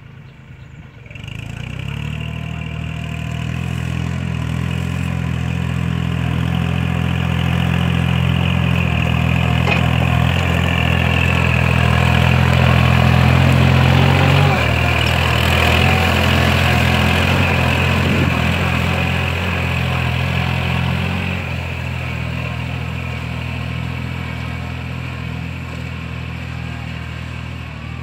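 Kubota L4018 tractor's diesel engine running steadily under load while ploughing. It grows louder as the tractor comes close, peaks about halfway through, then slowly fades as it works away.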